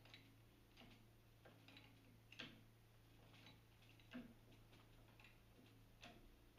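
Near silence: a faint steady low hum with faint scattered clicks about once a second.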